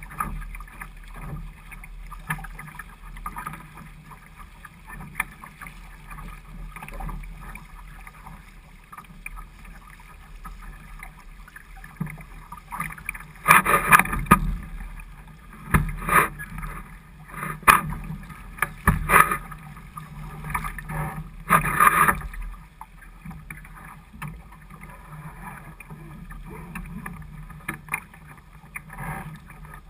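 Water washing and slapping against the hull of a small sailing dinghy under way, with several louder splashes between about halfway through and three-quarters of the way in.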